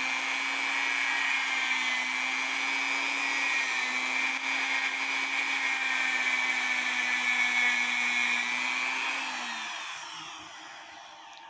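Motor-driven wire brush wheel running steadily against the teeth of a clock's governor wheel, a high whine over scraping, scrubbing off green gunk. The motor slows and dies away near the end.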